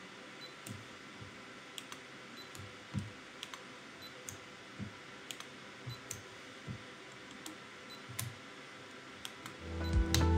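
Handheld VW-S1 colour-measuring device being pressed onto chart patch after patch: sharp button clicks and soft taps about every second or two, with a few faint short beeps that signal each patch has been read. Music fades in near the end.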